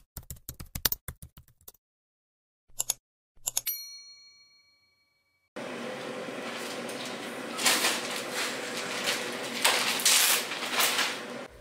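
Typewriter sound effect: a quick run of key clicks, a few more strokes, then a bell ding that rings out for about two seconds. About five and a half seconds in it cuts to kitchen room noise with a steady faint hum, and a plastic bag crinkles several times near the end.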